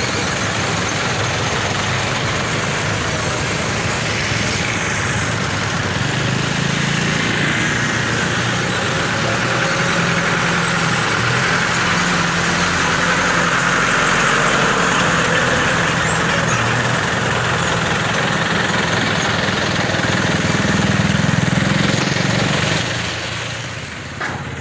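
Toyota flatbed truck's engine running as it drives along and past, a steady hum under road noise that drops away shortly before the end.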